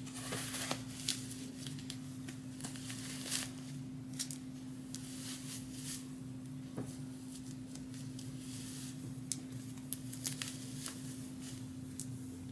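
Rustling and soft crackling of a wig's long hair and cap being handled and pulled over the head close to the microphone, with scattered small clicks. A steady low hum runs underneath.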